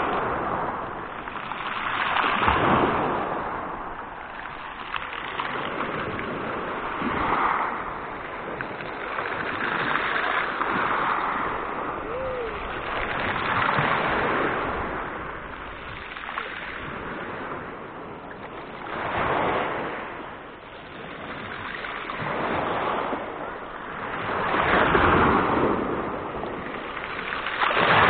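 Small sea waves breaking and washing up and back over a pebble beach close by, the surf swelling and falling away every few seconds.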